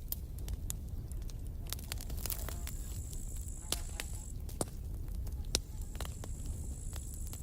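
Campfire crackling, with frequent sharp pops and snaps over a steady low rumble of flame. A thin high whistle holds steady twice, each time for about two seconds.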